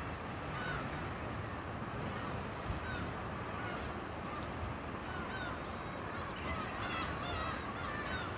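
Seagulls calling in short, scattered cries that come more often near the end, over a steady rushing background.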